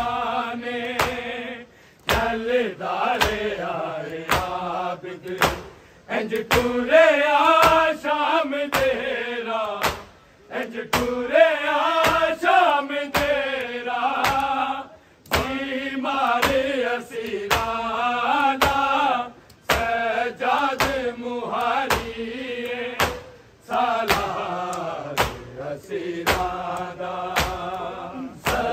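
Male voices chanting a Shia noha, a Muharram lament, in long sung phrases broken by short pauses about every four seconds. A steady beat of sharp strikes keeps time under the chant.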